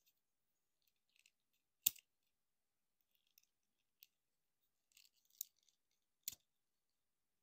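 Plastic clicks and snaps from a Transformers Generations Optimus Prime figure as its parts are moved and pegged into place during transformation. Three sharper snaps stand out, the loudest about two seconds in and two more near the end, with faint ticks between.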